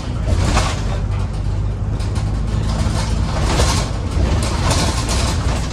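Alexander Dennis Super Pointer Dart single-deck bus's diesel engine running under way, heard from inside the front of the cabin as the bus drives through a turn. A steady low engine hum runs underneath, with recurring waves of hissing road and body noise over it.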